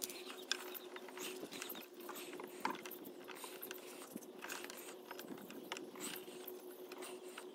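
Light clicks and scrapes of pliers and hands working on car tail-light wiring, with a faint steady hum underneath.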